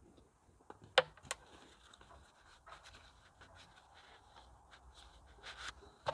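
Canvas haversack being opened and unpacked by hand: rustling of canvas and gear, with a sharp click about a second in and small clicks and scrapes after it.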